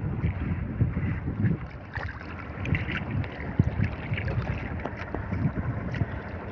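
Wind buffeting the microphone over sea water moving around a small boat, with a few light knocks.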